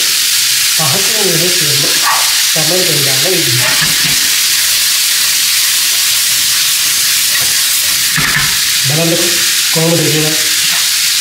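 Tinned salmon and vegetables frying in an oiled pan over a gas flame, a steady hiss of sizzling as a spatula stirs and tosses them.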